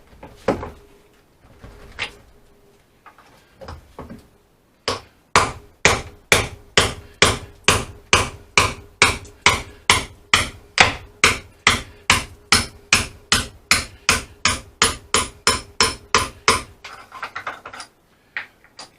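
Hammer striking repeatedly: a few scattered blows, then a long steady run of heavy blows at about two and a half a second, ending with a quick flurry of lighter taps.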